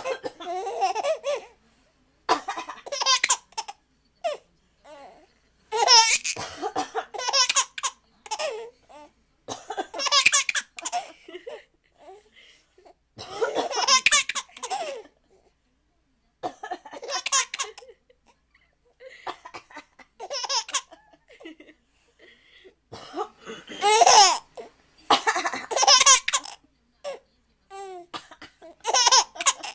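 An old woman coughing and laughing in about a dozen separate bursts, each a second or two long, with short pauses between.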